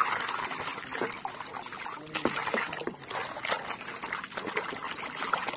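Muddy, foamy water sloshing and splashing in a plastic basin as a plastic toy rifle is scrubbed through it by hand, with many small irregular splashes.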